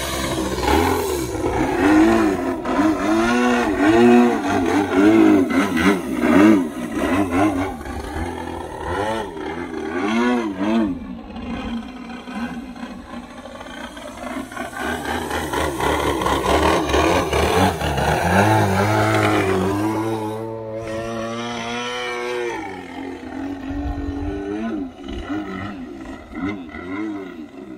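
OS GT33 single-cylinder two-stroke petrol engine of a radio-controlled Extra 330 aerobatic plane in flight, its pitch swinging up and down again and again as the throttle is worked through the manoeuvres.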